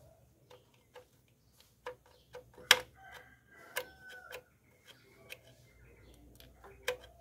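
Irregular metallic clicks and clinks of hand tools and engine parts being handled, with the loudest knock about two and a half seconds in and a brief ringing clink just after.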